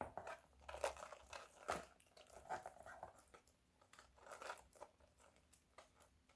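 Faint rustling and scattered light clicks of a leather bag strap being handled and fastened onto a small pouch.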